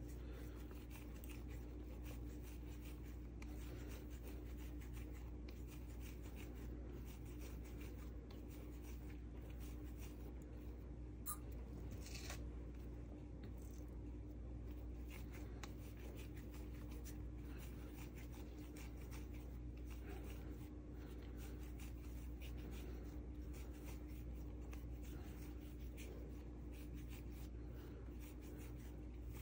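Hands rolling and shaping small balls of soft bread dough: faint rubbing and scratching over a steady low hum, with a small click about eleven seconds in.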